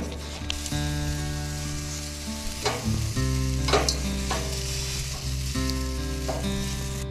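Beef hot dogs sizzling on the stainless grate of a Magma marine gas grill, a steady hiss, with a few short clicks of metal tongs turning them.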